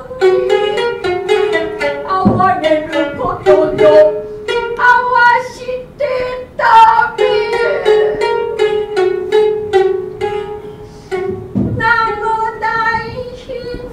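Shamisen for puppet-theatre jōruri playing a passage of sharply plucked notes in quick succession, with a chanting voice holding long notes over it.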